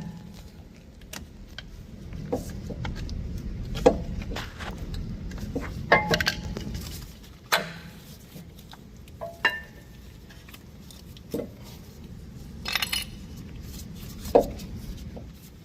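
Scattered metallic clinks and clicks, some ringing briefly, as hand tools and steel brake parts are handled during rear brake pad work.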